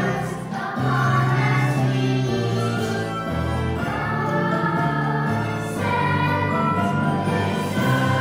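A choir singing a song with musical accompaniment, held notes changing every second or so.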